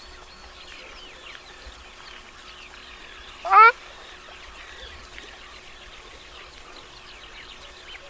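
Ruddy shelduck giving a single short honking call about three and a half seconds in, over faint high calls of other birds.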